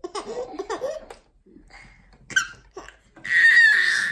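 Baby laughing in short giggling bursts, then, near the end, a loud high-pitched child's squeal.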